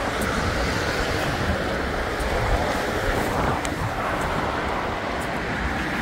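Steady noise of traffic on a busy multi-lane road passing below, with one vehicle's pitch falling as it goes by about midway, and some wind on the microphone.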